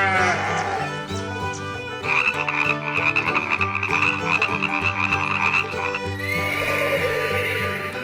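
Goat bleating over background music: a short call at the start, then a long, quavering bleat held at one pitch for nearly four seconds, and a falling bleat near the end.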